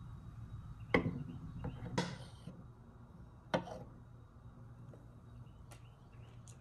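Kitchen utensils knocking sharply three times, about a second and then a second and a half apart, the second knock trailed by a short scrape, then a few faint clicks near the end.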